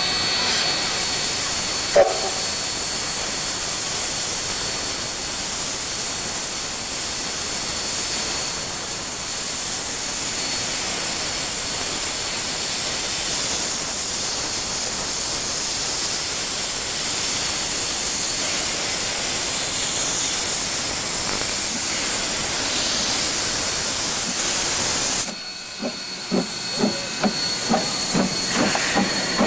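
Steam locomotive letting off steam: a loud, steady hiss that cuts off suddenly near the end, followed by a quick run of rhythmic knocks.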